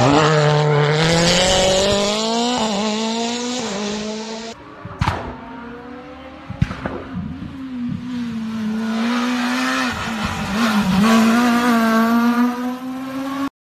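Rally cars at full throttle on a tarmac stage, engines revving up and dropping through gear changes as they pass, with two sharp bangs around 5 and 7 seconds in. A hard-driven engine holds and climbs in pitch toward the end.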